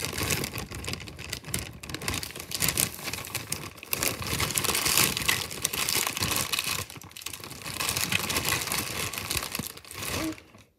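Clear plastic bag of wrapped Halloween candy crinkling and rustling as a hand rummages through it, stopping near the end.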